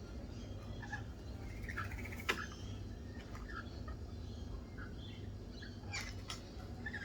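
Small birds giving short, scattered chirps over a low steady rumble, with a sharp click about two seconds in and a few more near the end.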